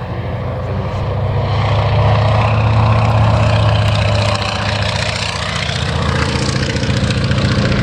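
Antonov An-2's nine-cylinder radial piston engine and propeller running, loud and steady, growing louder over the first two seconds and then holding.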